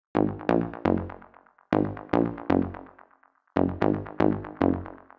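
Serum synthesizer bass preset playing a deep house bass-stab riff: short, quickly decaying pitched notes in groups of three or four with brief gaps between the groups.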